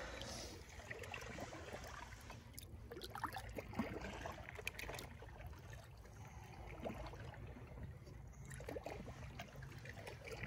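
Faint lakeshore water sounds, small trickles and splashes, over a low steady rumble.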